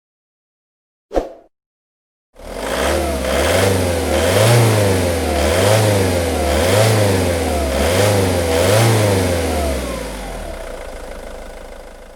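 A short sharp click, then a car engine that is revved up and down about five times in an even rhythm, roughly once a second. The engine then drops back toward idle and fades out.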